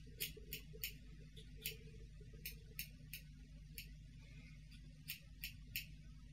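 Hair scissors snipping the ends of hair: about a dozen short, sharp snips in small irregular groups, with a brief pause in the middle, over a low steady hum.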